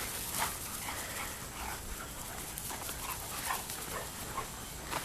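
A dog whimpering and yipping in a series of short cries, one after another, the excited whine of a dog eager to run.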